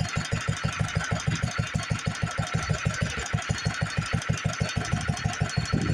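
International Harvester LA single-cylinder stationary engine running at a steady, moderate speed, driving a lineshaft machine shop: an even beat of about seven pulses a second.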